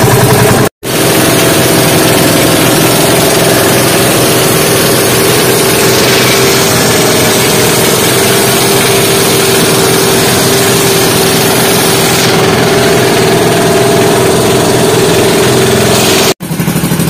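Outrigger boat's engine running steadily under way, a loud, even drone that drops out briefly about a second in and again near the end.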